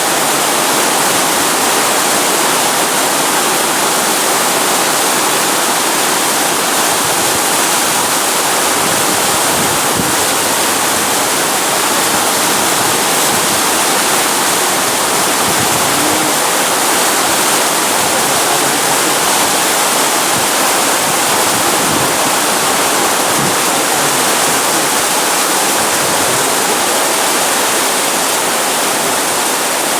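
Heavy rain pouring steadily: a loud, even hiss of downpour.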